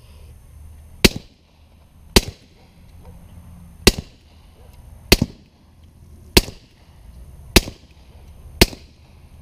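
Seven suppressed .45 ACP pistol shots from subsonic 230-grain Hush rounds fired through an Osprey suppressor. They come at an uneven pace of roughly one shot a second, each a sharp crack with a short echo.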